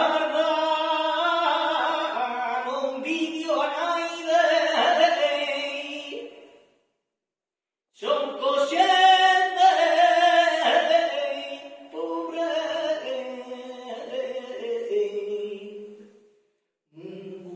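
Male flamenco singer (cantaor) singing long, wavering, ornamented phrases into a microphone. He breaks off twice: once for about a second, about seven seconds in, and briefly again near the end.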